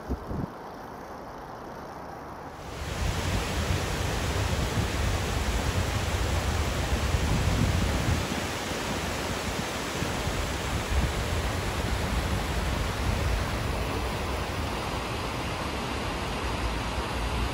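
Wind rushing over the microphone: a steady hiss with an uneven low rumble that comes in about three seconds in, after a quieter start.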